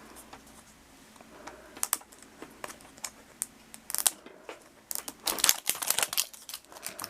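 Blind-bag toy wrapper being crinkled and torn open by hand: scattered crackles at first, then a dense run of crinkling over the last two seconds.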